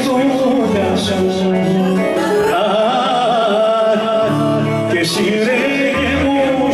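Live Greek folk dance music: a man singing into a microphone over a band playing an ornamented melody line above held bass notes.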